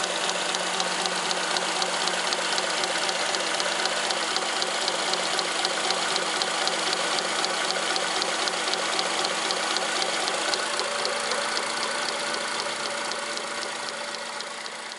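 Honda Accord engine running at idle with a fast, even knocking under the hood. The knock comes from the worn aftermarket serpentine (poly-V) belt, cracked and frayed in its ribs, beating on the pulleys; it was first taken for a power-steering pump fault. The sound fades away over the last few seconds.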